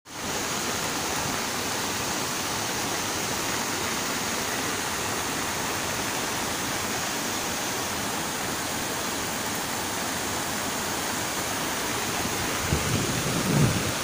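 Mountain river in spate, swollen by heavy rain, its fast white water rushing steadily. A few low bumps come near the end.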